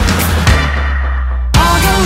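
Background music: an upbeat rock-pop song with a steady drum beat. The drums and highs drop out briefly over a held bass note, then the full band comes back in about one and a half seconds in.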